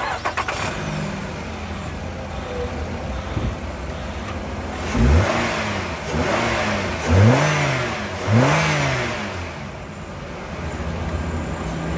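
Renault Koleos 2.5-litre four-cylinder petrol engine starting with a short burst of cranking right at the start, then idling. A little after the middle it is revved four times, three of them sharply, each rise and fall lasting about a second, before it settles back to a steady idle.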